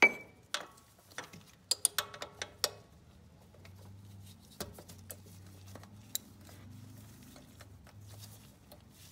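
Metal hand tools clinking as a ratchet and extension are picked up and fitted onto the oil filter's socket adapter: a sharp clank at the start, a quick run of clicks about two seconds in, then scattered light ticks over a faint low hum.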